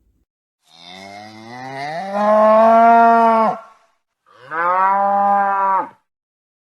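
Cow mooing twice: a long moo that rises in pitch and then holds steady, then a shorter, level moo.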